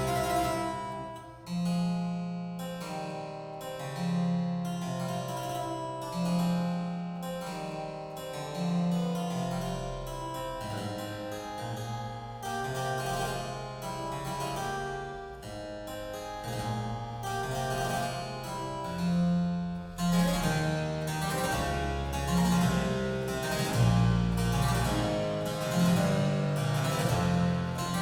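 Instrumental music with a keyboard part of quick notes over a stepping bass line, played back through Elfton Vegas II four-way loudspeakers and heard in the room.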